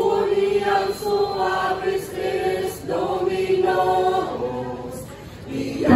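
Choir singing a hymn unaccompanied in long held phrases, growing softer near the end.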